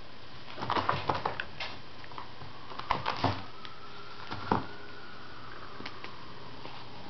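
Scratchy scuffles of a kitten pouncing and clawing at a string toy on a woven rug, in short clusters: a flurry about a second in, another around three seconds, and a single sharp one near four and a half seconds.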